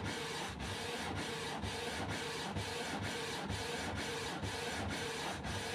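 Canon Pixma E3370 inkjet printer printing: the print head sweeps back and forth in a steady rhythm of short passes with brief regular pauses as the sheet feeds out. It is printing a photo, which is why it goes a little bit slow.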